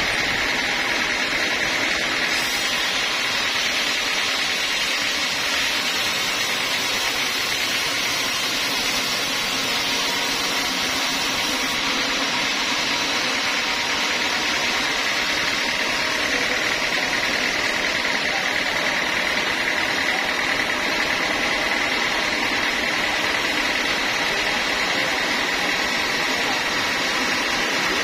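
Band sawmill cutting lengthwise through a teak log: a steady, unbroken cutting noise with a held high whine.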